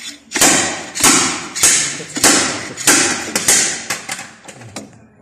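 Steady series of hammer blows on metal, about eight, roughly one every 0.6 seconds, each ringing out briefly. This is a hammer striking a steel tool set against a car's water pump to knock the pump loose during a water pump replacement.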